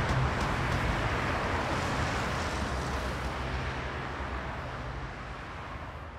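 Road traffic noise, a steady rush of passing cars, fading out steadily.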